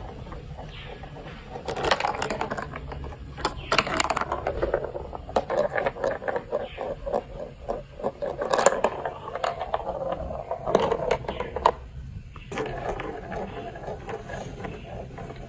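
Plastic building blocks clicking, clattering and scraping as they are handled and fitted together. The clicks come in irregular clusters, with a short lull near the end.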